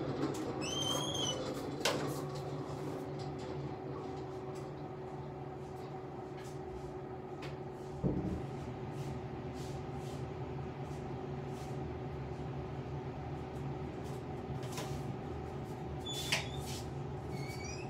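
Room ambience: a steady low hum with scattered faint clicks, a single knock about eight seconds in, and short high rising chirps near the start and again near the end.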